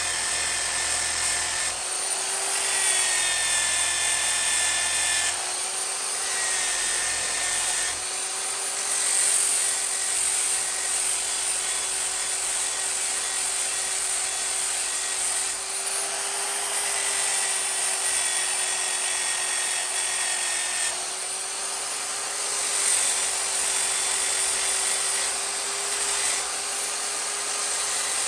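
Angle grinder fitted with a hook-and-loop pad and 100-grit sanding disc, running steadily with a constant motor whine while the disc sands an axe blade. The sanding noise rises and eases every few seconds as the disc is worked over the steel.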